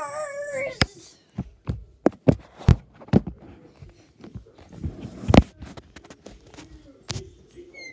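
A high, wavering wail of a voice trails off within the first second. Then come irregular knocks, taps and rubbing of hands handling the phone close to its microphone, the loudest knock a little past halfway.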